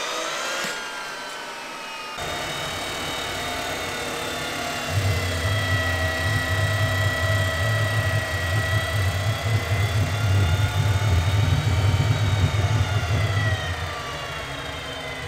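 GTD-350 helicopter turboshaft engine being cranked for a start: a high whine that rises in pitch at first and then holds steady, joined about two seconds in by a low rough rumble that is loudest from about five to fourteen seconds and then falls away. It is a start attempt on an engine whose free turbine is not turning.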